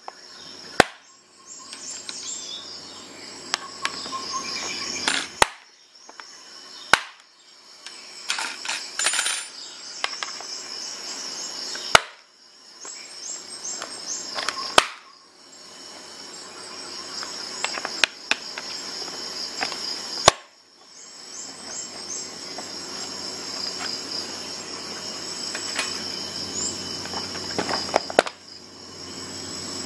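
Thin metal guide rods of a Lansky sharpening kit being handled and pressed into the plastic clips of its case lid, giving a series of sharp clicks and small rattles. Under it runs a steady high-pitched insect-like chirping.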